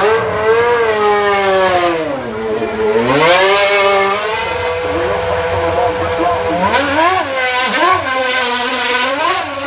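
High-revving single-seater racing car engine being revved, its pitch sweeping down and back up, then a run of short, sharp throttle blips in the second half.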